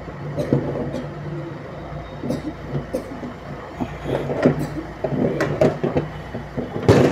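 Steel parts of a hydraulic floor jack clinking and knocking against its steel frame as they are fitted back in, in scattered irregular knocks with a louder one near the end, over a steady low hum.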